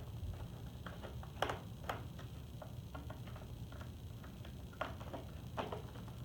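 Irregular small clicks and ticks of a crosshead screwdriver working the screws of a Robosapien V2's plastic battery compartment cover, with a few sharper clicks about a second and a half in and again near the end.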